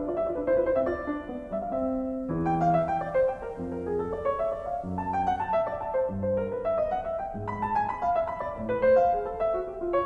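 Background piano music: a light melody of quick notes over a lower accompaniment.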